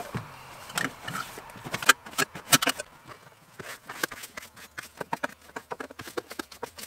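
Hand brush sweeping out a car footwell in quick, short scraping strokes, with a few louder knocks in the first three seconds.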